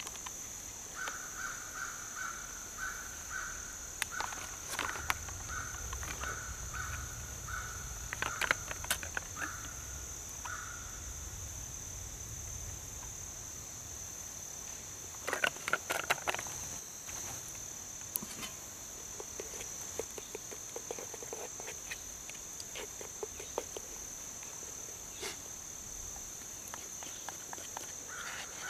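Outdoor woodland ambience: a steady high-pitched insect drone throughout, with a short call repeated about two to three times a second for the first ten seconds that then stops. Scattered clicks and rustles from hands handling a paper packet, a plastic water bottle and a stirring spoon come and go, most clustered about a quarter and half a minute in.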